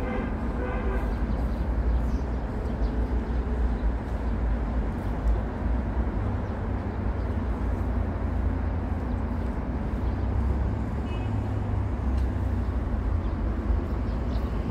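Steady low rumble of road traffic, with a brief high chirp about eleven seconds in.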